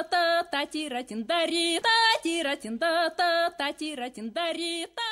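A single high voice singing a quick run of short notes with vibrato, unaccompanied.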